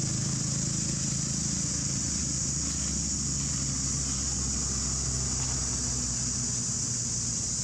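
A steady high-pitched insect drone over a low, even engine hum. The hum drops a little about six and a half seconds in.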